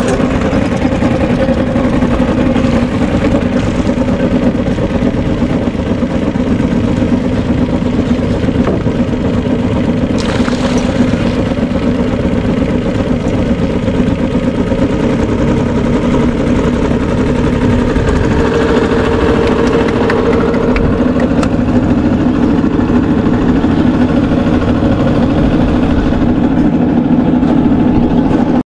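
Motorboat engine running steadily at a constant speed, a loud even drone.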